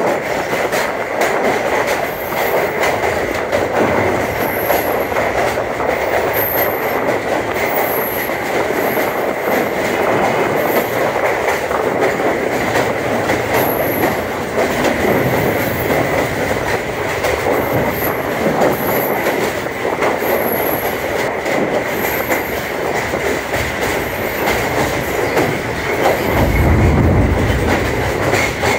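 Zakariya Express passenger coach running across a steel truss railway bridge: a steady loud rumble and clatter of wheels on rail, with a thin high whine of wheel squeal held throughout. A deeper low rumble swells briefly near the end.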